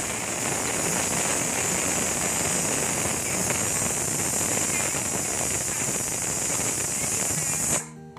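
Dhuska batter fritters deep-frying in very hot oil in a kadhai: a steady loud sizzle that cuts off suddenly near the end.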